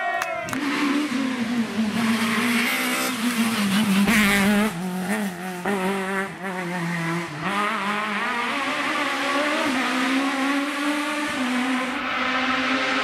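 Peugeot 306 Maxi rally car's high-revving four-cylinder engine at full throttle through a hillclimb bend, its pitch rising and falling with gear changes and lifts off the throttle, loudest about four seconds in. In the last few seconds a steadier race-car engine note climbs slowly.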